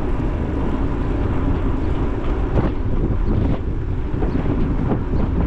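Steady wind rush buffeting the microphone over a low rumble, as from a camera on a moving bicycle.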